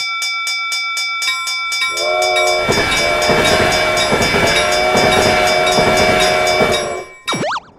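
Railroad crossing warning bell dinging in rapid, even strikes. About two seconds in, a train horn sounds a steady chord over the clatter of a passing train, and both cut off about seven seconds in. A short cartoon boing follows just before the end.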